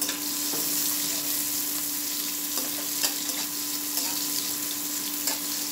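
Sliced onions sizzling in hot oil in a steel karahi, stirred with a metal spatula that now and then ticks and scrapes against the pan. The onions are still pale, at the start of frying.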